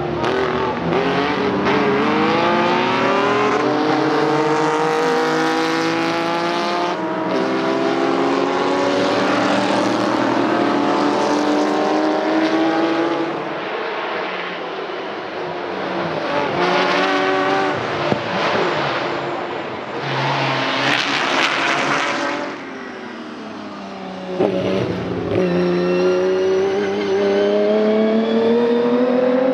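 Historic racing car engines accelerating hard, their pitch climbing and dropping back with each upshift, several cars passing one after another. About three-quarters of the way through it eases briefly, then one car's engine climbs steadily in pitch near the end.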